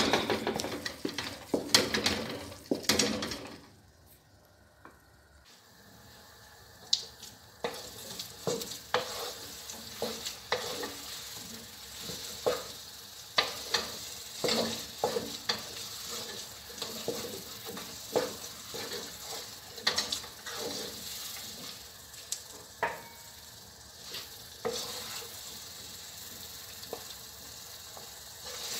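Wooden spatula stirring and scraping glutinous rice for biko around a wok, with knocks and scrapes about once a second over a steady sizzle as the rice cooks down in milk, not yet sticky. Louder pan clatter in the first three seconds, then a short quieter spell.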